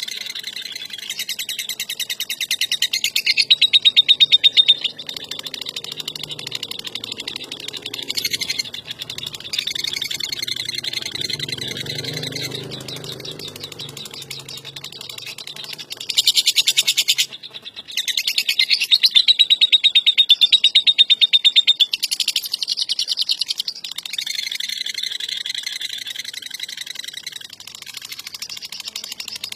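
Lovebird chattering in long, rapid trills (ngekek): a fast, continuous, rattling chatter with several louder stretches and a brief break partway through.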